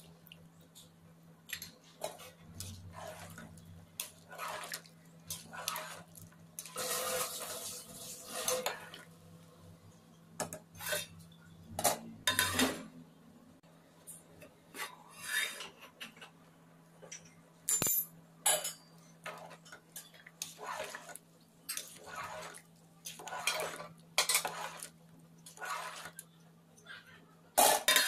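Aluminium cooking pot and its lid clinking and scraping in scattered short knocks and clatters as the lid is handled and set on the pot.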